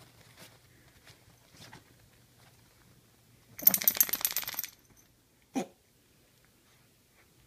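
Miniature pinscher shaking herself off after getting up, her collar's metal hardware jingling rapidly for about a second. A single short, softer sound follows about a second and a half later.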